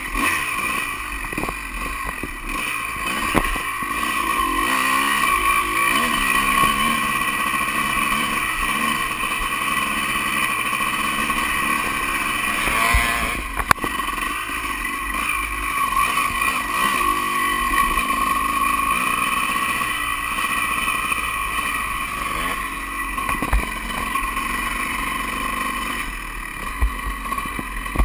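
Honda CR250 single-cylinder two-stroke dirt bike engine running and revving as it is ridden over dirt trails, recorded on the bike with wind rush. A few sharp knocks from bumps come through, about 3, 13 and 23 seconds in.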